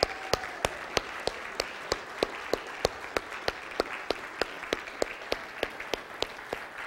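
Congregation applauding, with one person's louder claps close by at about three a second over the crowd's steady clapping.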